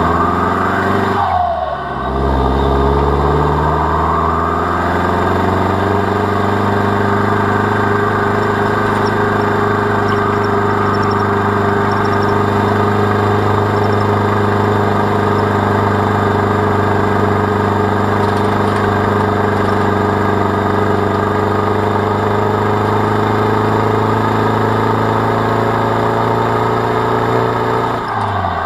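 Land Rover Defender 110's remapped TDCi diesel engine pulling under load while towing a tractor on a trailer. Its revs drop at a gear change about a second and a half in, climb again over the next few seconds, and then hold steady. They fall away near the end.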